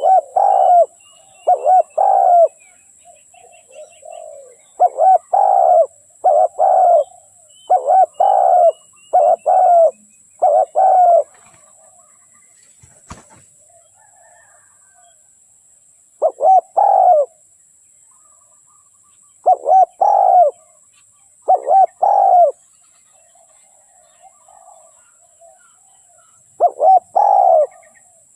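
A dove cooing in repeated phrases of two to five low coos, with pauses of a few seconds between phrases.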